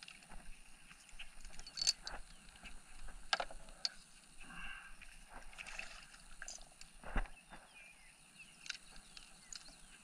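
Irregular clicks, taps and knocks of fishing tackle being handled in a kayak, with a rustling stretch midway and two louder knocks about two and seven seconds in.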